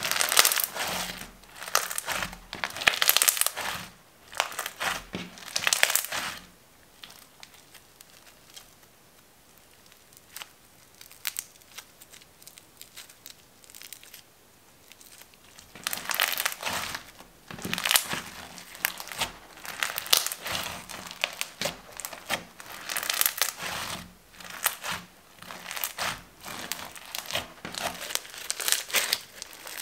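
Crunchy crackling of glitter slime packed with foam beads as it is squeezed and kneaded by hand. It comes in spells, with a quieter stretch of sparse faint clicks in the middle.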